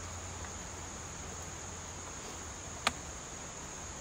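Steady high-pitched drone of insects, with one sharp click about three seconds in as the folded cane chair is drawn out of its fabric carrying case.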